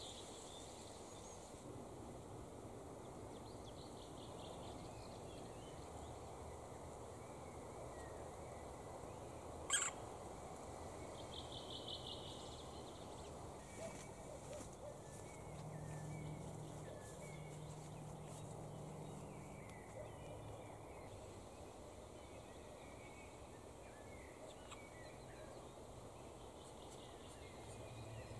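Black woodpecker nestlings calling faintly from the nest hole: short rapid pulsed trills, one at the start and another about twelve seconds in, with scattered small calls between. A single sharp click comes about ten seconds in and is the loudest sound, and a low hum runs for a few seconds in the middle.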